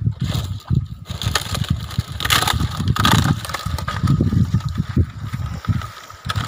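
Dried palm frond rustling and scraping as it is dragged over grass, with wind buffeting the microphone. The rustling is loudest about two to three seconds in.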